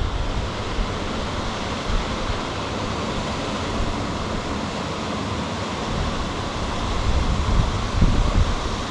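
Wind blowing on the microphone: a steady rushing noise, with stronger low buffeting gusts near the end.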